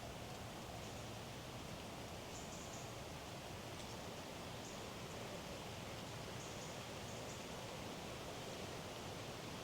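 Woodland ambience: a steady soft rustling hiss with faint, short, high bird chirps every second or two.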